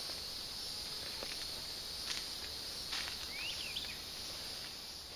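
Steady high-pitched drone of insects in the woods, with a few faint clicks and a short burst of quick rising chirps about three and a half seconds in.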